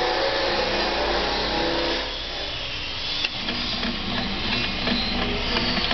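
Automatic resistor lead cutting and forming machine running, with its vibratory bowl feeder: a steady mechanical hum and rattle that drops in level about two seconds in. About three seconds in comes a sharp click, followed by a run of light ticks.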